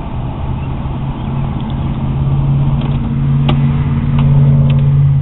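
A 1998–2001 Nissan Altima's cabin heater/AC blower fan running steadily, a low hum over rushing air that grows a little louder, now working on all speeds with its speed control card replaced. A single sharp click about halfway through.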